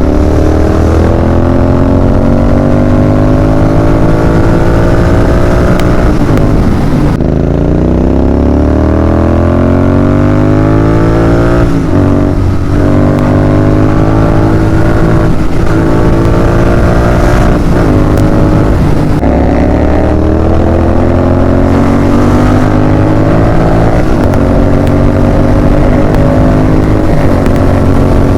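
Royal Enfield Continental GT 650's parallel-twin engine accelerating hard through the gears, its pitch rising in each gear and dropping at three upshifts along the way.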